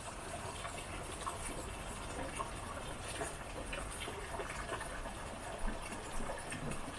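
Steady rain falling on a hut's porch, with many small drop ticks scattered through an even wash of noise.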